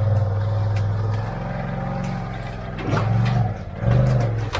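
Polaris RZR Turbo S side-by-side engine idling, with two short throttle rises about three and four seconds in.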